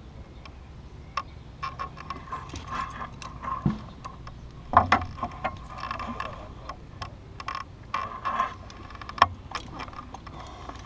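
Hand winch of a large arbalest siege crossbow turned by its pegs to draw the bow: an irregular run of ratchet-like clicks and creaks, with two louder clacks about five and nine seconds in.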